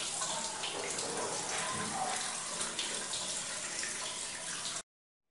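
Water running from a hose into a plastic basin: a steady splashing rush that cuts off abruptly near the end.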